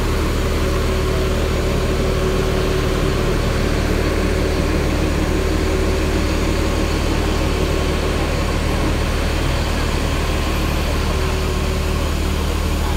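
Diesel engine of a parked intercity coach idling with a steady low hum.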